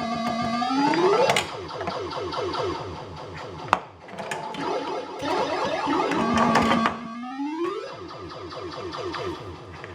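Bally Eight Ball Deluxe pinball machine in play: its electronic sound board plays fast pulsing synthesized tones, with two long upward-sweeping sound effects, mixed with sharp mechanical clicks from the playfield, one loud click about four seconds in.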